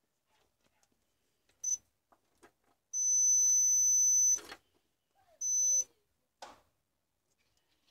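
A DT9205A digital multimeter's continuity buzzer beeps three times as the test probes touch a compact fluorescent lamp's ballast board: a short beep, a long one of about a second and a half, then another short one. The beeping signals a near-zero-resistance path between the probes. Light clicks of the probes are heard between the beeps.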